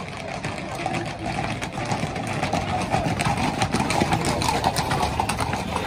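Shod horses' hooves clattering on the road in a rapid run of clicks, under the mingled voices and shouts of a street crowd.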